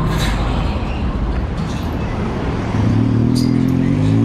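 Street traffic noise, then a tuk-tuk's engine running as it drives close past, growing louder from about three seconds in.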